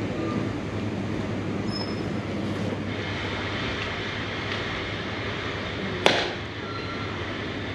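Steady airport terminal background rumble with a low hum, and one sharp knock about six seconds in.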